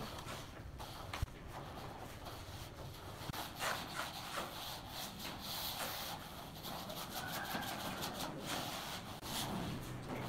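A metal straightedge scraping and rubbing across a damp sand-and-cement screed bed as it is levelled, in irregular strokes with occasional light knocks.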